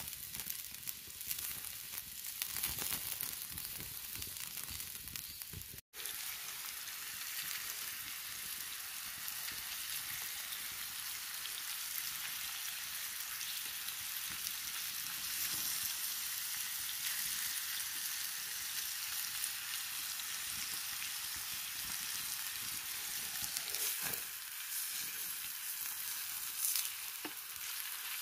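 Beefsteak and sliced tomatoes sizzling and frying on a flat hot stone over a wood fire, a steady hiss with a brief break about six seconds in. Near the end a wooden spatula scrapes and turns the food on the stone.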